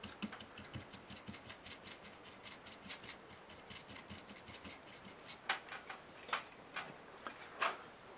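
Small stiff-bristled brush scrubbing flux residue off the solder joints of a quadcopter flight controller board: faint, irregular scratchy strokes, a few of them louder in the second half.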